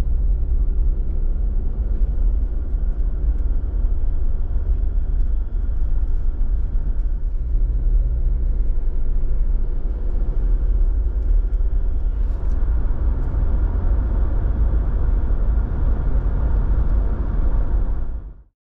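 Steady low rumble of a moving vehicle with a faint engine hum. It cuts off suddenly near the end.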